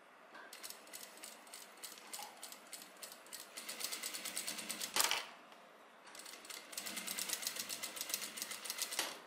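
Sewing machine stitching in two runs of rapid ticking. The first starts slowly and speeds up, ending with a sharp click about five seconds in. After a short pause, a second fast run stops near the end.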